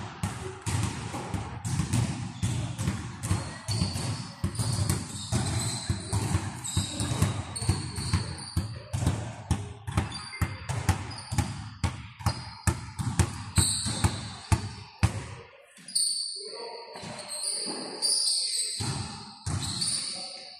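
Basketball bouncing on a hardwood gym floor, about two to three bounces a second, with short high squeaks of sneakers on the court. The bouncing stops about 15 seconds in, leaving scattered squeaks and voices.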